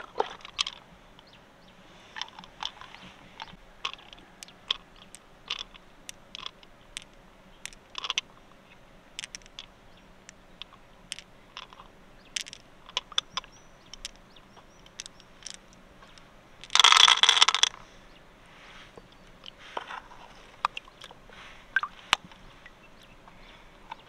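Pearls clicking against each other and against the freshwater mussel's shell as they are picked out and piled up by hand: many small sharp clicks at an uneven pace. About two-thirds of the way through there is a louder noisy burst lasting about a second.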